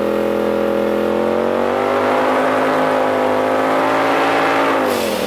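2018 Polaris RZR Turbo S's turbocharged engine, straight-piped through an Agency Power race exhaust, heard from the open cab: it pulls steadily, climbs in pitch as it accelerates about a second in, holds high, then drops quickly as the throttle is lifted near the end.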